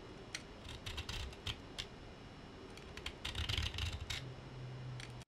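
Tapered diamond rod of a Smith's Pocket Pal PP1 sharpener being pushed and rolled through the serrations of a knife blade: irregular light clicks and scrapes, with a denser run of them about three seconds in. A low steady hum comes in near the end.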